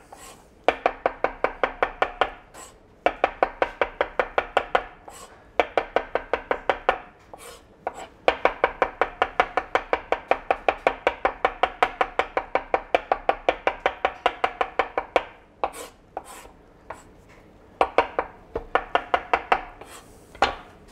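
Large kitchen knife rapidly chopping hard-boiled egg white on a plastic cutting board, about seven quick strokes a second, in runs of a few seconds broken by short pauses.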